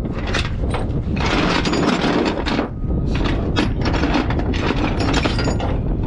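Steel transport chain being handled on a trailer deck: a run of quick metallic clanks and rattles as the links knock against each other and the deck. A steady low wind rumble sits underneath.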